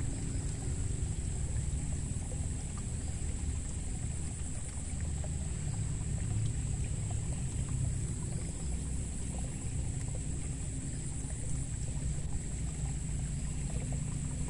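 Steady low rumble of motorbike and road traffic from a nearby road, rather noisy, with a thin steady high-pitched whine over it.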